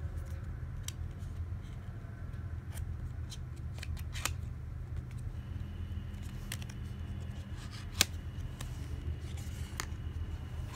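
Paperboard box being handled and opened: scattered small clicks and scrapes of card, with one sharp click about eight seconds in, over a steady low hum.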